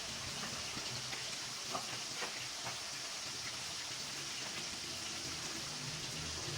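Food frying in hot oil in a pan: a steady sizzling hiss with faint scattered pops.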